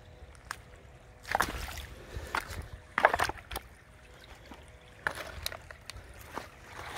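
Footsteps crunching irregularly on dry leaves, twigs and stones beside a shallow creek, against faint trickling water.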